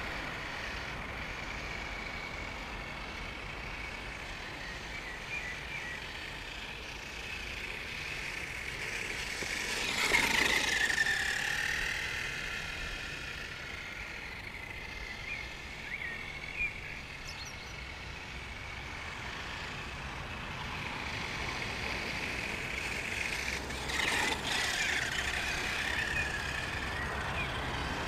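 Brushed electric motor and gears of a 1/10 Helion Dominus 10SC short-course RC truck whining as it drives. The pitch rises and falls with the throttle, and it is loudest about ten seconds in and again near the end, over a steady low rumble.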